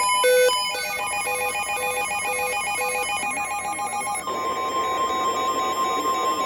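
Emergency alert signal: rapidly switching electronic beeping tones for about four seconds, then a single steady alert tone near 1 kHz starts about two-thirds of the way through.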